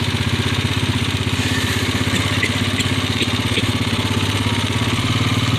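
A small engine idling steadily, with an even, fast pulse.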